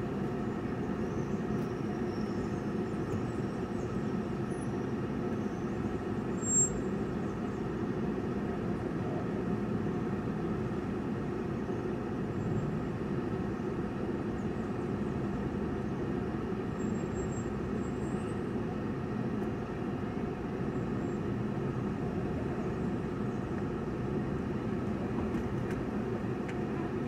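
Car engine and road noise heard from inside the cabin while driving slowly, a steady low drone, with one brief click about six and a half seconds in.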